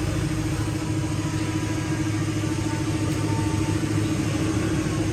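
Road traffic: a steady engine hum with a low drone that neither rises nor falls.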